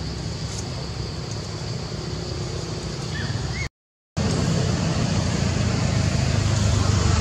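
Steady outdoor background noise: a low rumble with a thin, steady high hum above it and a few faint chirps. It cuts out completely for about half a second midway, then returns a little louder.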